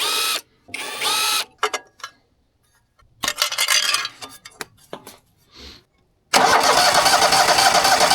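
Portable sawmill engine being cranked over by its electric starter without catching. There are a few short cranks early on, then one longer crank of about three seconds near the end that stops abruptly. The fuel pump is delivering no fuel.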